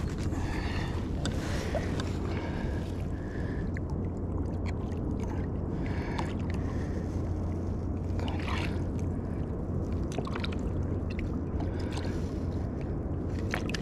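Steady rush of wind and water around a sea kayak, with a few brief sharp sounds about half a second in, around eight and a half seconds in, and near the end.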